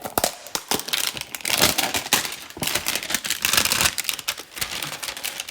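Card-box packaging being cut open by hand: a dense run of irregular clicks and crinkling.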